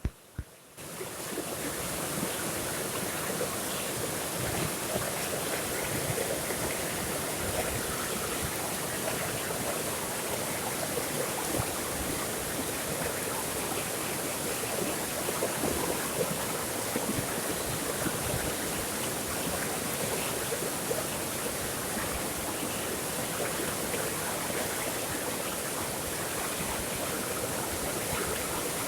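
Water flowing steadily, a continuous even rush that comes in about a second in.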